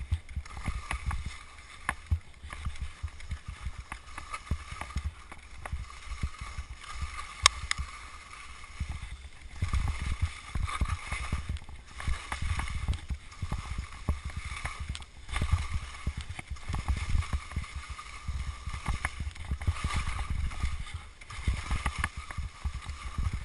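Wind buffeting a GoPro's microphone during a fast telemark ski descent, with telemark skis scraping and chattering over icy, hard snow in many short clicks and rasps. A faint wavering whistle runs underneath.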